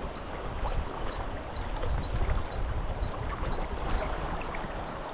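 River water rushing steadily past a gravel bar, with wind buffeting the microphone.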